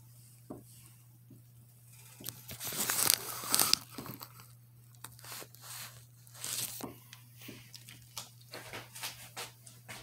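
Aluminium foil crinkling and rustling as cheese wrapped in it is handled and cut, loudest in a run of rustles about two to four seconds in, then in shorter scattered crinkles.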